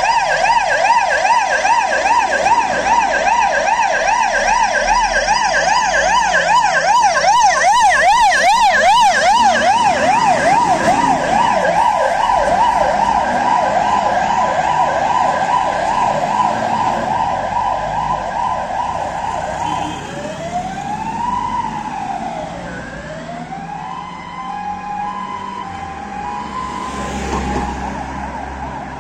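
Fire engine's siren sounding a fast warble while responding to an emergency call. After about twenty seconds it switches to slower rising-and-falling wails and fades as the truck drives off.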